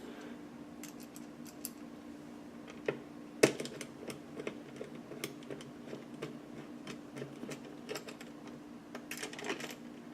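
Small scattered clicks and light metal taps as screws are fitted into a Noctua CPU-cooler mounting bracket and screwed down, with one louder knock about three and a half seconds in. A steady low hum runs underneath.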